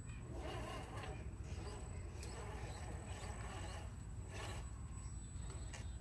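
RC4WD Toyota Hilux scale rock crawler climbing over rocks, its suspension squeaking and creaking in bursts, about half a second in and again late on.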